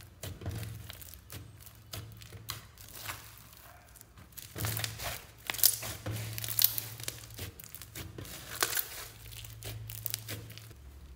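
Foam-bead slime (floam) being squeezed, pressed and stretched by hand: irregular crackling and popping from the beads and the sticky slime, busiest and loudest about halfway through as it is pulled apart.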